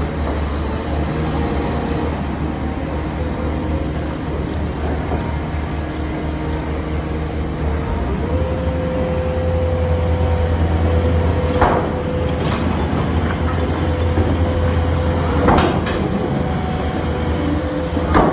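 HPM 250 foundation drill rig's Cat C9.3 diesel engine running steadily under load. A steady whine joins about 8 seconds in, and three short metal clanks come near 12, 15 and 18 seconds.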